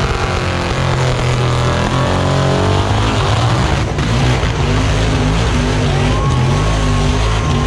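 Supercharged big-block Chevrolet V8 in an HQ Holden one-tonner revving hard through a burnout, its pitch swinging up and down as the rear tyres spin.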